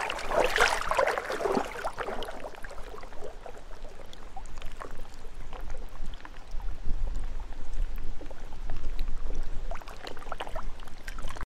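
Small lake waves lapping and splashing in an uneven run of little slaps, busiest in the first two seconds and again near the end. A low wind rumble on the microphone sits underneath.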